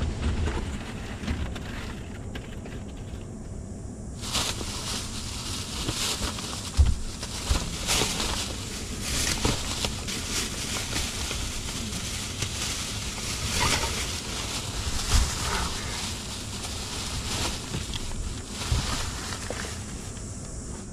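Plastic grocery bags crinkling and rustling as they are lifted out of a car's cargo area, with a couple of louder thumps about 7 and 15 seconds in. Low wind noise on the microphone runs underneath.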